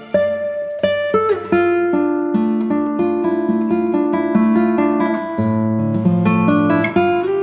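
Background music on a plucked string instrument, a run of notes picked one after another, each ringing briefly as the next begins.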